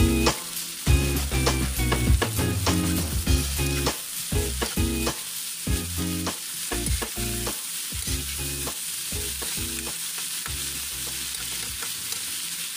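Vegetables sizzling in a hot metal wok while a spatula stirs and tosses them, scraping and clinking against the pan. The clinks come thick and fast in the first half and thin out after that, leaving mostly the steady sizzle.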